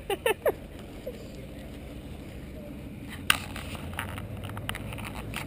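A person's voice in a few short bursts at the start, then a low steady rumble with one sharp click about three seconds in.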